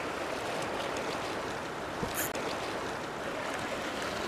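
Ocean surf washing steadily over shoreline rocks, with a brief click about two seconds in.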